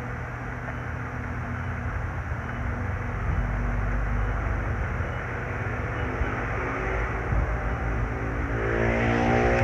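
Steady low rumble of background engine noise, with a pitched engine hum growing louder near the end.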